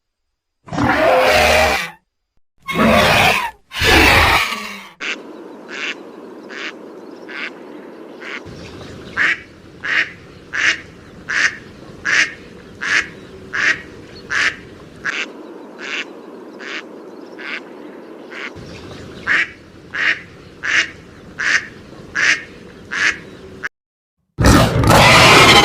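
Made-up creature calls for imagined birds: three loud, noisy calls, then a long run of short calls repeating evenly about three every two seconds over a steady background, and another loud noisy call near the end.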